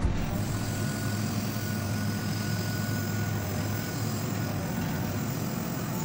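Diesel engine of an earthmoving machine, a backhoe loader or loading shovel, running steadily with a low hum.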